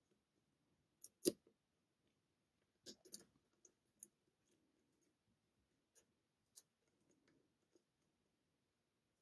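Faint, scattered clicks of a lock pick working the custom pins inside a pin-tumbler challenge lock held under tension. The sharpest click comes about a second in, with a small cluster of clicks around three seconds and a few lighter ticks after.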